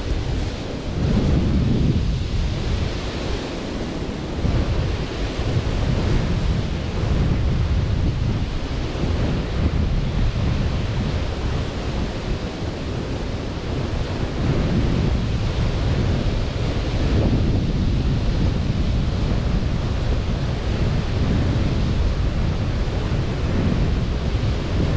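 Sea surf washing onto a beach, mixed with wind: a continuous rush, heaviest in the low end, that swells and eases every few seconds.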